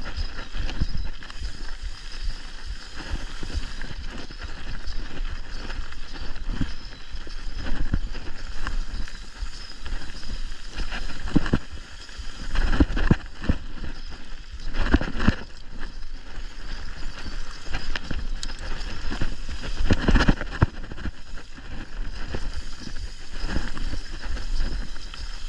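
Mountain bike rolling fast over a dirt singletrack strewn with leaf litter: a continuous rattling, rumbling ride noise from the tyres and bike. Several louder knocks and clatters from jolts over bumps come in the second half.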